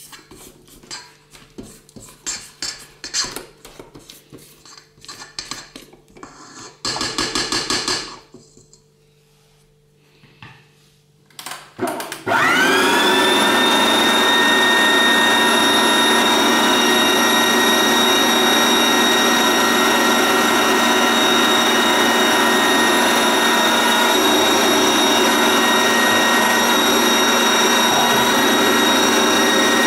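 Planetary stand mixer with a whisk attachment: scattered clicks and knocks, with a short loud burst about seven seconds in, then about twelve seconds in the motor spins up with a rising whine and settles into a steady, loud run as it beats butter and icing sugar.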